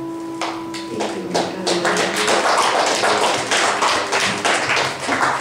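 A congregation applauding with many hands clapping at once, starting about half a second in as the last held keyboard chord of the song dies away within the first second.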